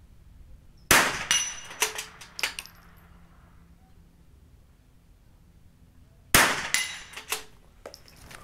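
Two .22 LR rifle shots fired from a standing position, about five and a half seconds apart. Each is followed by a few fainter metallic clicks and clanks.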